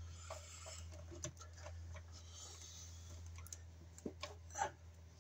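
Faint, scattered small clicks and rustles of stiff insulated wires being handled and tucked into a baseboard heater's metal wiring compartment, a couple of louder clicks near the end, over a steady low hum.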